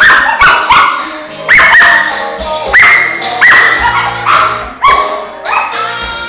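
Dogs barking repeatedly, a string of sharp barks every half second to a second, over background music.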